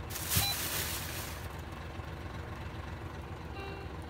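Hino Profia truck's diesel engine idling with a steady low rumble in the cab. Just after the start a knock and a loud burst of air hiss lasting about a second and a half, typical of the truck's compressed-air system venting; a faint short beep near the end.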